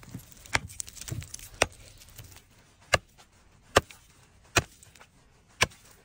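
Axe chopping a hole in thin sea ice: about six sharp blows, roughly a second apart.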